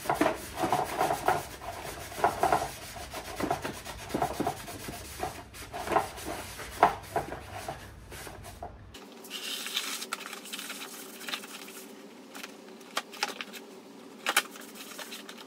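Hands working on an old plastic tackle box, taking it apart: rubbing and scraping with many small plastic clicks and knocks. About nine seconds in, the sound changes abruptly to a quieter stretch with a faint steady hum and a few sharp clicks.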